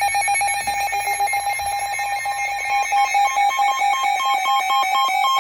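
Electronic alert tone: a loud, steady, rapidly pulsing beep, joined in the second half by a slightly higher tone that blinks on and off. It is the attention signal that comes before a broadcast emergency warning.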